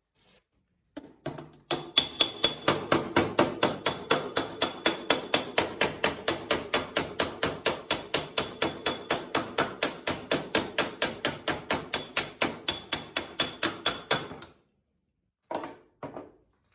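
Hand hammer beating sheet-steel body panel in rapid, even blows, about four to five a second for some thirteen seconds, with the metal giving a thin steady ring; two short knocks follow near the end.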